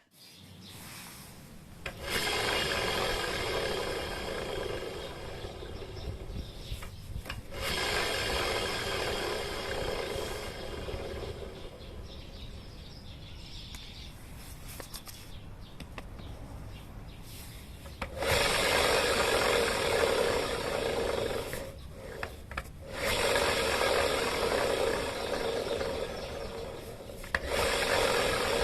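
Yamaha Aprio scooter giving off a rasping, grinding noise that swells in several surges of a few seconds each. The owner takes the noise for a worn bearing.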